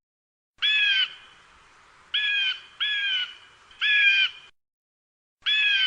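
Eagle calling: five short calls of about half a second each, the first alone, then a close pair, another, and a last one near the end.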